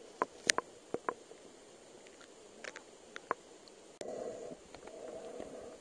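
Underwater sound picked up through a camera's waterproof housing: scattered sharp clicks and ticks, then two short stretches of a muffled rushing noise about four and five seconds in.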